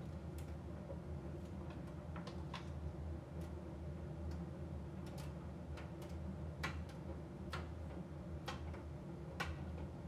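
AEG AbsoluteCare heat pump tumble dryer running in its drying phase: a steady low hum from the motor and heat pump, with light, irregular clicks as the load tumbles in the drum, roughly one a second.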